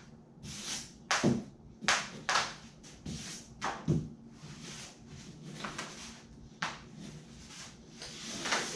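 Short scraping strokes of a hand tool spreading Liquid Nails construction adhesive along a foam kayak skeg: about a dozen irregular swipes, some sliding down in pitch.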